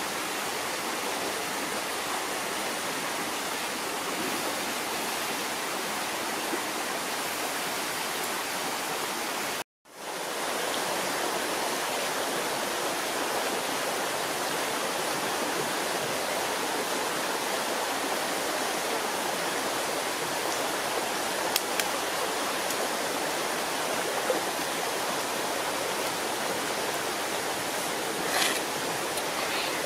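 Steady rushing of a flowing stream, cut by a brief gap of silence about ten seconds in. Near the end, a few light crackles as the shell of a cooked duck egg is peeled.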